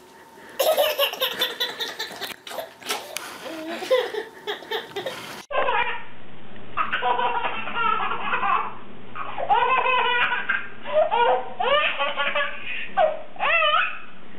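A baby laughing hard in repeated fits. After a sudden cut about five seconds in, a second baby laughs in short bursts, again and again.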